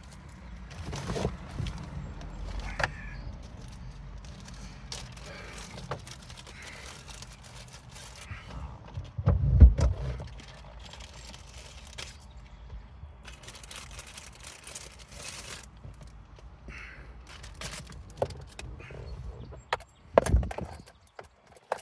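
Hands handling a car stereo wiring harness and its plastic connectors: scattered clicks, rustles and light knocks, with a louder thump about ten seconds in and another near the end.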